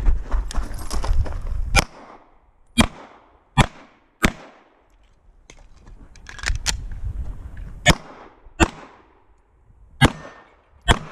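Semi-automatic pistol shots: about eight sharp cracks, mostly fired in pairs under a second apart. Between the pairs comes low rumbling noise from the shooter moving between shooting positions with a body-worn camera.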